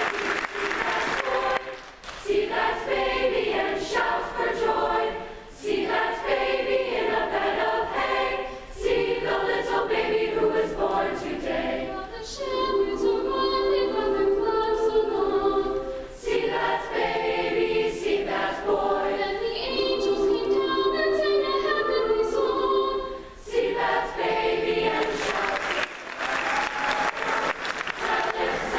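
A large mixed choir singing, breaking off briefly between phrases every few seconds.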